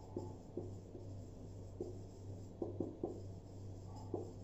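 Marker pen writing on a whiteboard: short, irregular scratching strokes and taps as words are written, over a low steady hum.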